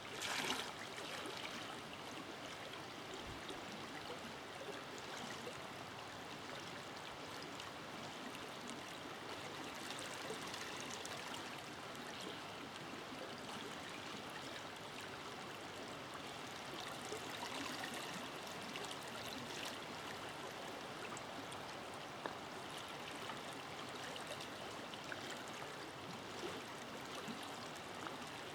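Forest river flowing: a steady rush of running water with trickling, swelling a little now and then, and a brief louder surge about half a second in.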